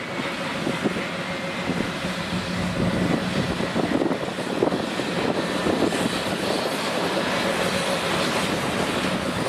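ČKD T448p diesel locomotive moving slowly with a freight train, its diesel engine running with a steady drone and a steady higher hum above it.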